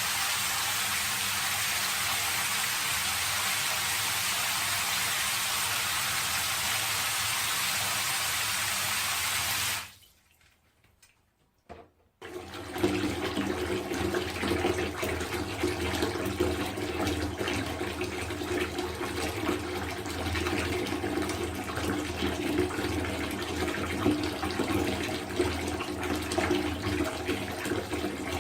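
Recorded water sound: a steady rush of running water stops about ten seconds in. After two seconds of near silence, a second take of water starts, busier and uneven, with many small drips and splashes.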